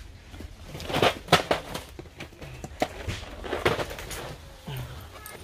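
Irregular clatter: a string of sharp knocks and clicks, the loudest cluster about a second in, over low background noise.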